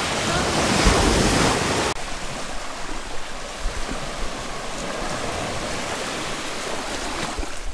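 Small waves lapping and washing up onto a sandy beach, a steady rush of water. The sound drops abruptly to a quieter wash about two seconds in.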